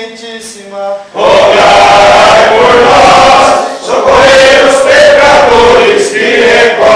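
A single male voice sings the last held notes of a litany invocation. About a second in, a group of men's voices joins in loudly, chanting the sung response in unison.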